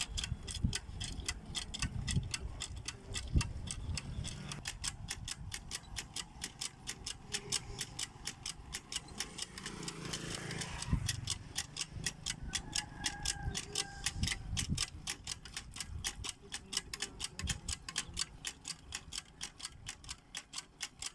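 Hand pump being worked steadily, its handle and rod clicking evenly about four times a second with low knocks, while water pours from the spout into a plastic jerrycan.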